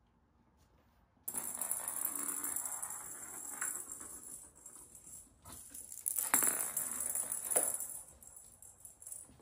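Kittens playing with cat toys: after about a second of silence a jingling, rattling toy sound starts, with a few sharp knocks and clicks from paws and toys on the wood floor.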